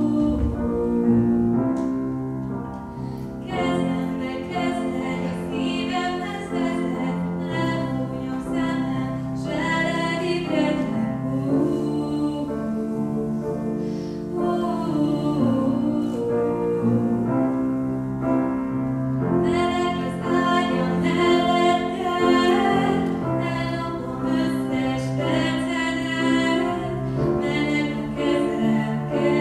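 A female voice singing a slow song with piano accompaniment.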